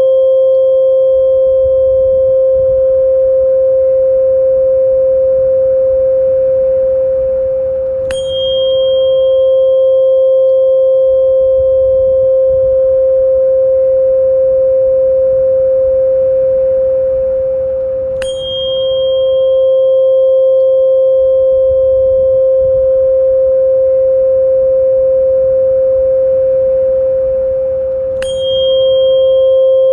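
Steady pure therapy tone held without a break, with a soft struck metallic ring about every ten seconds, three times, each adding a brief high shimmer over the tone.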